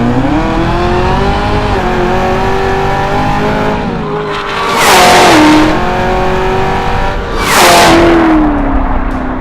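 Hennessey Exorcist Camaro ZL1's supercharged V8 pulling hard under throttle, its pitch rising at first and then holding. Twice a loud rushing burst is followed by a drop in engine pitch, about five and eight seconds in, as the 10-speed automatic shifts up.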